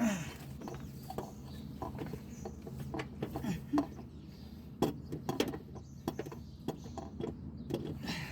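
Irregular clicks and knocks of hand tools and metal parts being handled, over a steady low hum.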